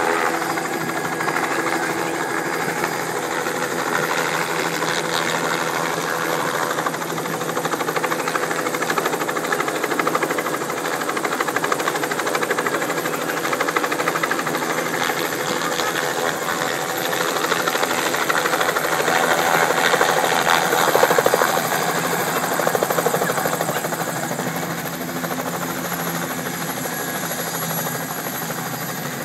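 Light helicopter's turbine engine and rotor blades running as it descends and lands. The rotor beat is loudest about two-thirds of the way through, then eases.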